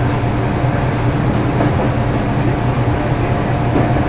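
Mizushima Rinkai Railway MRT300-series diesel railcar running along the line, heard from the cab. A steady low drone of its diesel engine and running gear with no breaks.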